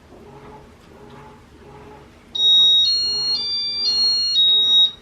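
An appliance's electronic chime plays a short tune of five high beeping notes, about half a second each, stepping up in pitch and back down. It starts about two and a half seconds in, over a faint rhythmic background hum.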